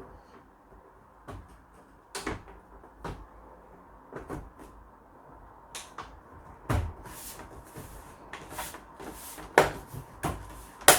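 Case lid of an Acorn RISC PC being fitted onto the computer: a string of clicks and knocks as it is set down and pressed into place, the sharpest near the end.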